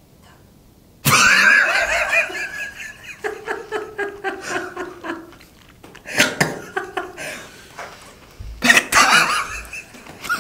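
Men laughing hard in uneven bursts, starting suddenly about a second in.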